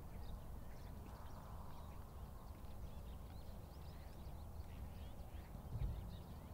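Faint outdoor ambience: a steady low rumble with scattered faint bird chirps, and a single dull thump near the end.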